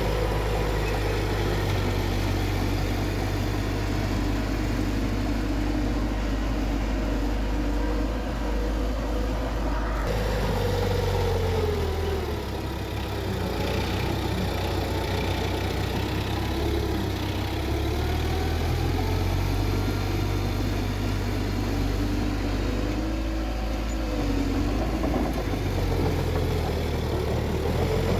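Bulldozer's diesel engine running under changing load, its pitch rising and falling as it pushes; it eases off briefly about twelve seconds in.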